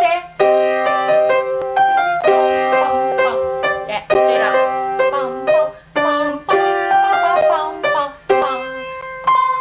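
Grand piano playing a short phrase over and over, starting again about every two seconds: a practice drill on staccato notes.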